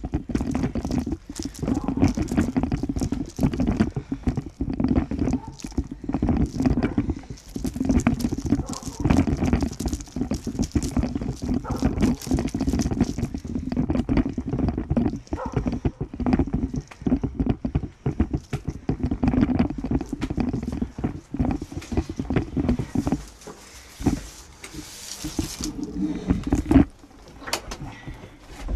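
Handling noise from a handheld phone microphone carried on foot: constant irregular rustling and knocking with footsteps. A louder knock comes near the end at a wooden door.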